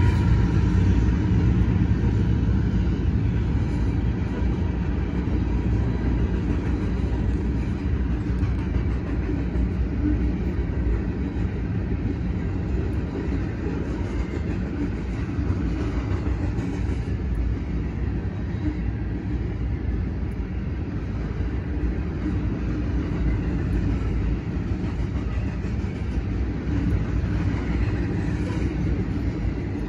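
Freight cars of a CSX train rolling past over a grade crossing: a steady low rumble of wheels on rail that eases slightly over time.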